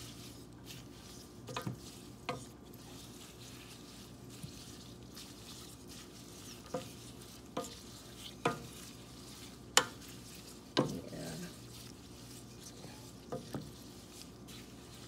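Wooden spoon stirring rose petals in water in a stainless steel pot, with scattered knocks of the spoon against the pot, the loudest about ten seconds in, over a faint steady hiss.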